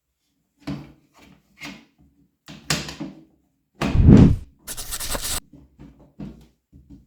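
Plastic parts of an in-wall flush cistern being handled and fitted back together: a string of clicks and knocks, a loud thump about four seconds in, and short rushing scrapes just after it and again near the end.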